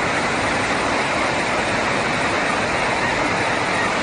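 Floodwater rushing down a street: a loud, steady noise that does not change.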